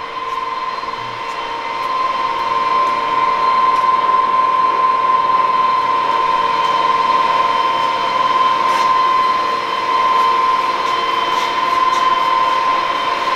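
Summit 28" x 120" engine lathe's geared headstock running at a steady speed: a steady whine over a hiss, growing louder about two seconds in.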